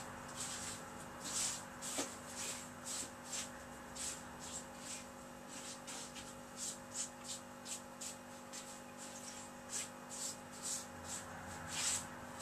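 A hand scraping and pushing dry sand across the bottom of an empty glass aquarium: a quick run of short, gritty rasps at an uneven pace, with a faint steady hum underneath.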